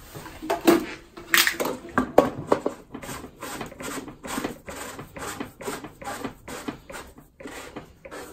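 Hard plastic knocks as the magnet is put back into an Adey MagnaCleanse flushing filter, then a run of regular clicks, about two or three a second, as its top cap is screwed down.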